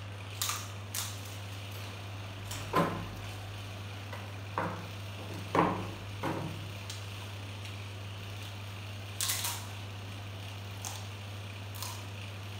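A moulded plastic chair knocking on a tiled floor as it is moved: a few sharp knocks a few seconds in, with lighter clicks before and after, over a steady low hum.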